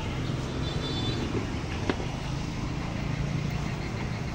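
Street traffic, mainly motorbikes running past, a steady engine rumble, with one sharp click about two seconds in.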